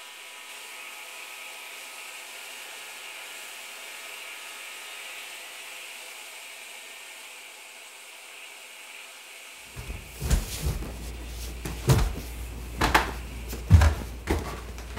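A faint steady hiss. About ten seconds in, a low hum comes in with a run of irregular knocks and thumps, the loudest near the end.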